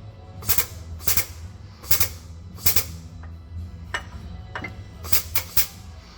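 Hammer blows on metal transfer-case parts: about four sharp strikes in the first three seconds, then two close together about five seconds in, over a steady low hum.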